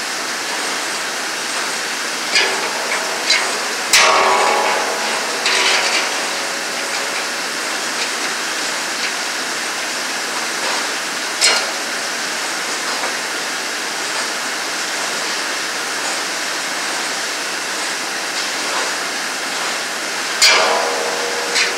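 Steel inserted-tooth saw bits, shanks and a wrench clinking and clanking against a large circular sawmill blade as its teeth are changed. A few of the knocks set the saw plate ringing briefly, the loudest near the end. A steady rushing noise runs underneath throughout.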